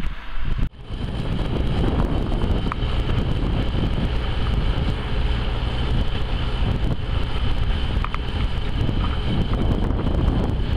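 Zetor 9245 tractor's diesel engine running steadily, driving a Nokka snow blower, with wind buffeting the microphone and scattered crackles. The sound drops out briefly just under a second in.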